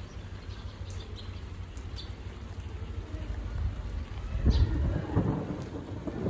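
Steady rain falling. About four and a half seconds in, a low rumble of thunder swells and grows louder.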